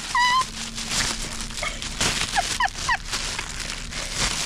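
Thin plastic bag crinkling and rustling as a dusky leaf monkey tugs at it, with several short high squeaks, some rising in pitch.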